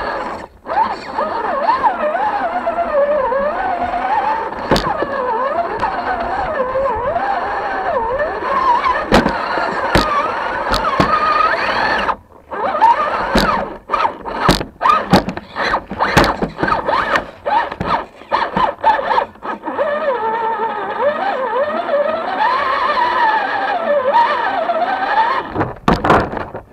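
RC rock crawler's motor and gearbox whining, the pitch rising and falling with the throttle. It cuts out briefly about 12 seconds in, and there are many sharp knocks and clatters in the middle stretch as the crawler climbs over rocks and planks.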